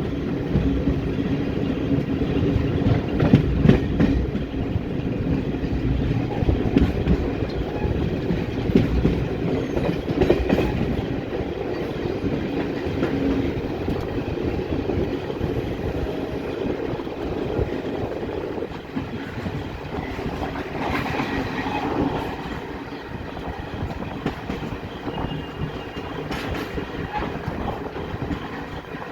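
Express passenger train running, a steady rumble of its wheels on the track with irregular clicks and clatter over the rail joints. The sound drops somewhat in loudness about two-thirds of the way through.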